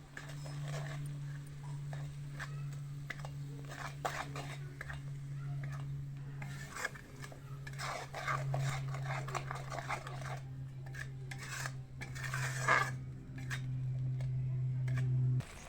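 A metal spoon stirring and scraping in a cooking pan, with clinks of utensils against the pan. A steady low hum runs beneath it and cuts off near the end.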